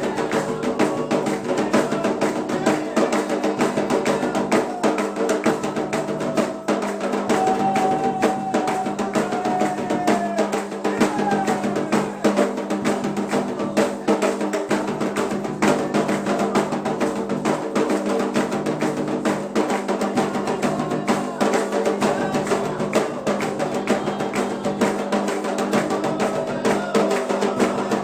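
Candomblé ritual drumming on atabaque hand drums, a dense steady rhythm of strokes throughout, with a voice singing over it.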